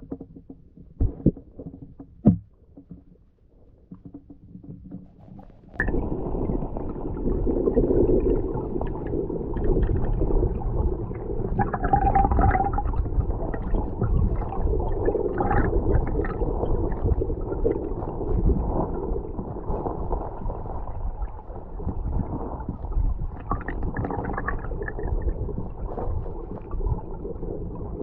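Underwater audio from a GoPro Hero 8 Black in a creek. A few sharp clicks come first, then about six seconds in a loud, low rumbling gurgle of moving water starts suddenly and carries on.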